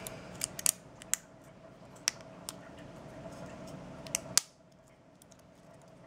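Small plastic phone parts clicking and tapping as they are handled and fitted together: the LG G5's charging-port module and bottom cap. There are about eight short sharp clicks, and the loudest comes near the end.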